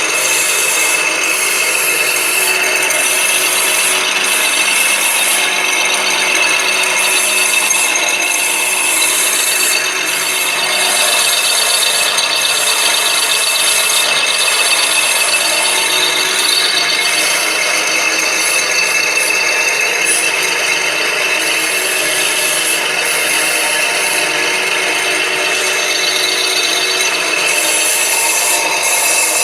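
Iron-pipe bending machine running steadily: a continuous loud machine noise with a few steady high tones, unbroken throughout.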